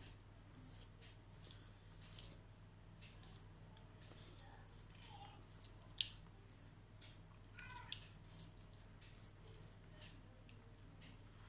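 Fingers mixing rice with chicken curry on a steel plate: faint squishing and scraping with light clicks, and one sharper click about six seconds in, over a low steady hum.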